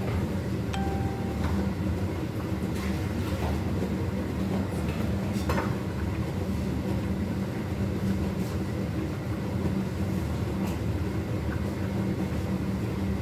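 Kitchen range hood extractor fan running with a steady hum, with a few faint light clicks.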